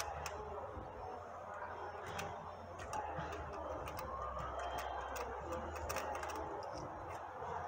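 Ratchet wrench clicking in irregular runs as it unscrews a spark plug from a Honda K20 engine's cylinder head.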